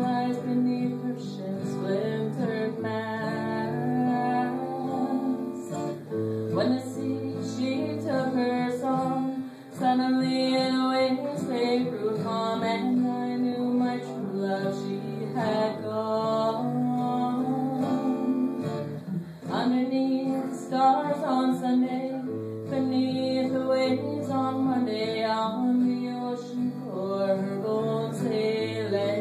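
A woman singing a Celtic-style folk song to her own acoustic guitar, which she strums steadily throughout, with her voice coming in in phrases.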